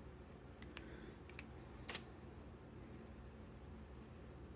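Faint squeaks and ticks of a Sharpie marker's felt tip rubbing over the tip of a steel wood-engraving tint tool, with a few short ticks in the first two seconds, over a low steady room hum.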